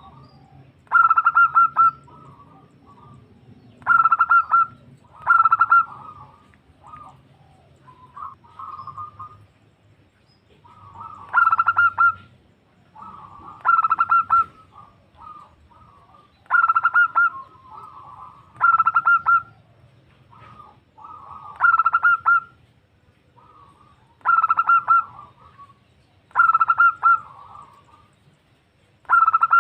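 Female zebra dove (perkutut) cooing, a call to draw a male: short rapid trilled coos repeated every couple of seconds, often in pairs.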